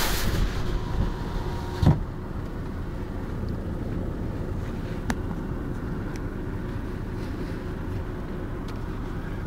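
Storm wind buffeting a car, heard from inside the cabin as a steady low rumble. A thump comes about two seconds in, after which the rumble settles lower.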